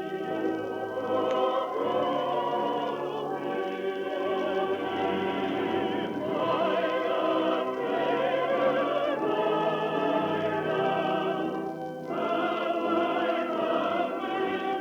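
Choir and orchestra performing, the massed voices singing with vibrato, with a short break about twelve seconds in. The sound is thin and muffled, with no highs, as on an old 78 rpm shellac disc.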